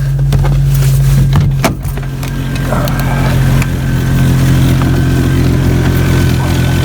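Jeep engine idling with its drive belt squealing, a thin steady high tone over the engine's low hum; the owner puts the squeal down to the belt being cold and dried out and slipping on the pulleys. A couple of sharp clunks about a second and a half in.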